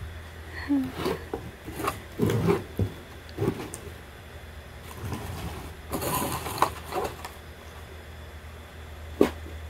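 Irregular handling sounds: light knocks, clatters and rustles, then one sharp click near the end, over a low steady hum.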